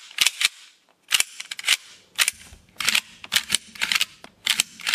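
Merkel RX Helix straight-pull rifle action worked by hand: a string of sharp metallic clicks and clacks in quick groups as the bolt is cycled back and forth and the action is cocked, a function check of the freshly reassembled action.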